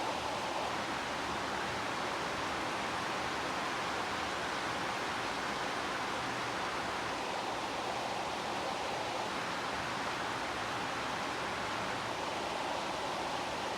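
Heavy rain falling steadily: a dense, even hiss with no breaks or thunder.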